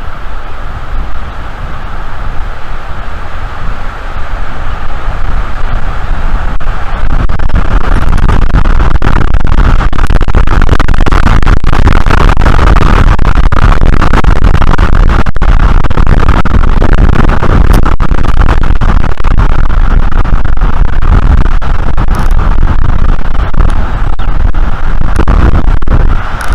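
Strong wind buffeting an outdoor nest-cam microphone, a heavy rumble with rustling, rising to a louder, steady blast about six seconds in.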